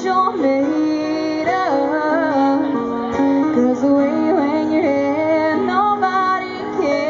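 Live acoustic music: two acoustic guitars playing, with a woman's singing voice carrying a bending melody over them.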